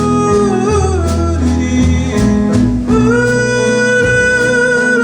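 Country song in slow three-time on plucked strings, with a long held melody note that slides down, then rises to another held note about three seconds in.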